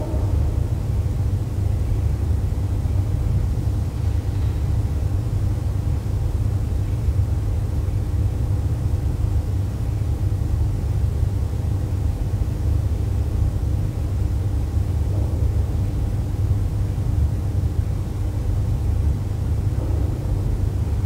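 Steady low rumble of background noise, with a faint even hum of steady tones above it.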